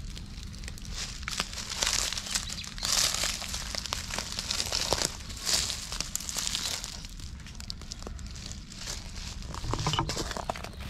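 Dry fallen leaves crinkling and crunching as they are stepped on and stirred, in irregular rustling spurts.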